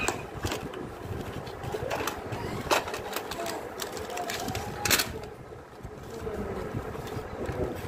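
A cardboard medicine carton being opened and handled, its flap and the packets inside rustling, with a few sharp clicks and snaps from the box, the loudest about five seconds in.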